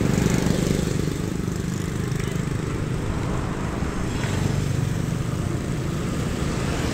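A small engine running steadily with a low, even hum.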